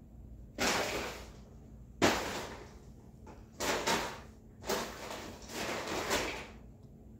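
A cat attacking a nearly empty dry cat-food bag, the bag crinkling and rustling in a series of short bursts as it is pounced on and pushed about. The sharpest, loudest crackle comes about two seconds in.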